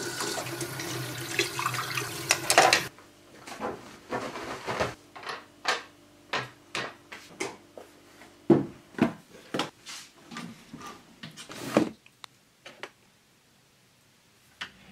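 Kitchen tap running into a sink, with dishes being rinsed, stopping abruptly about three seconds in. It is followed by a run of separate clicks and knocks as objects are handled and put away, and one thump near the end.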